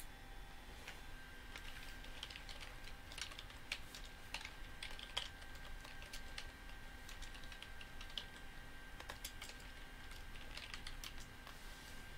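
Faint, irregular clicking of keys on a computer keyboard, in scattered clusters, over a faint steady electrical whine.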